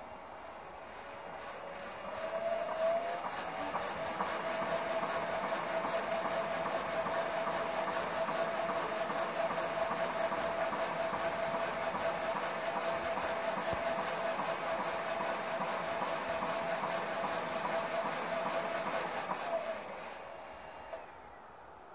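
Shock absorber dynamometer's electric motor spinning up over the first couple of seconds and then running steadily with a constant whine, stroking a Fox Float X Evol3 shock through a compression test. It winds down near the end and is followed by a single click.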